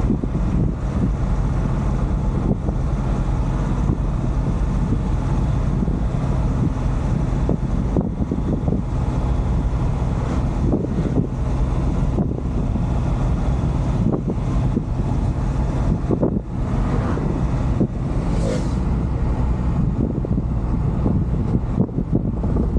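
Steady engine and road noise heard from inside a moving JAC truck's cab, heavy in the low end, with scattered short knocks and rattles.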